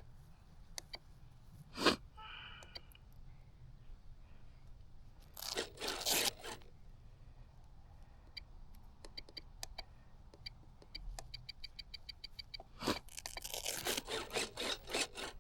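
Close handling noises: crunching and scraping bursts, a sharp knock about two seconds in followed by a short beep, and runs of small rapid clicks, fitting hands working a foam-board model plane and the buttons of its radio transmitter.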